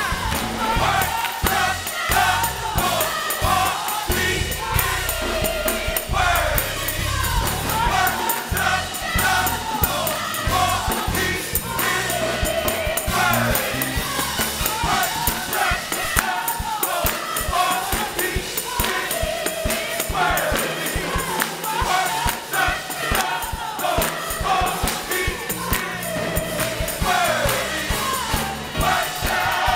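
Gospel choir singing with a live band: drum kit with cymbals and keyboard, and a tambourine shaken along with the beat.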